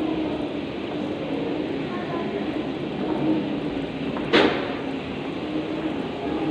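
Steady background hum of a busy indoor corridor with faint voices, and a single sharp knock about four seconds in.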